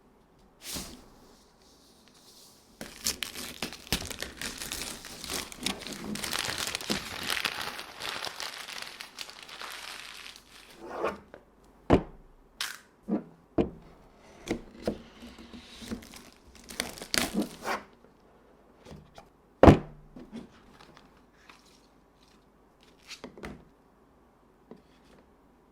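Plastic wrapping crinkling and tearing as a smartphone retail box is unwrapped, followed by a series of separate thunks and clicks as the box and its contents are handled, the loudest knock near the end.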